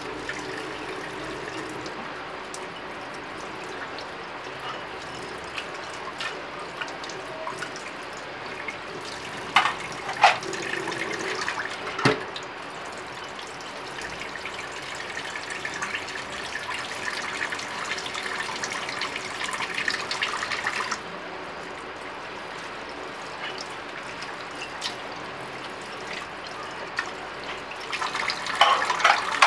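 Tap water running into a stainless-steel sink while plates are washed by hand, with a few sharp knocks of the dishes about a third of the way in and more clatter near the end.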